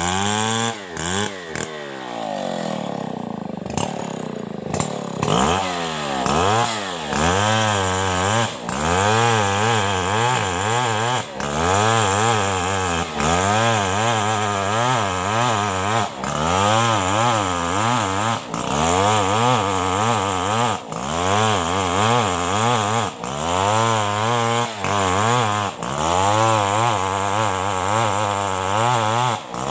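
Chainsaw cutting into a coconut trunk. About two seconds in the engine drops off, then it revs up and sags again and again, about every two and a half seconds, as the chain works through the wood.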